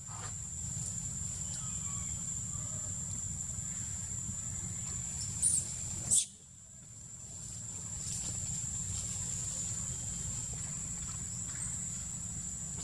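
Steady high-pitched drone of insects over a low rumble, broken by two short knocks about five and a half and six seconds in, after which the sound drops briefly and comes back.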